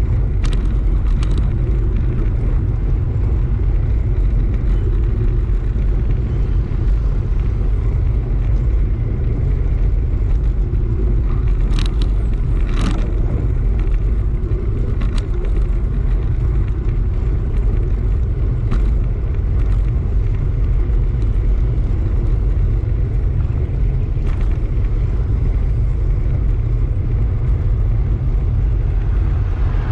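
Steady low rumble of wind buffeting a bike-mounted camera's microphone while riding, with two sharp clicks near the middle.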